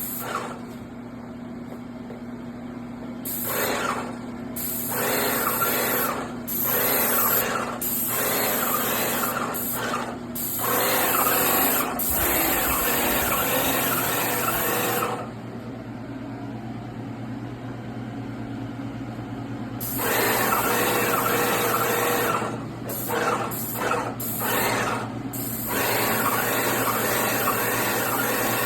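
Graco Magnum X7 airless paint sprayer at work: its pump hums steadily while the spray gun hisses in repeated bursts of one to several seconds, starting and stopping sharply as the trigger is pulled and released to spray primer.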